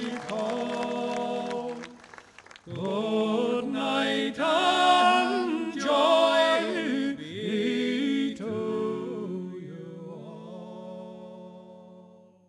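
Slow music with a voice singing a sustained, wavering melody. It starts after a brief pause from earlier held notes and fades out near the end.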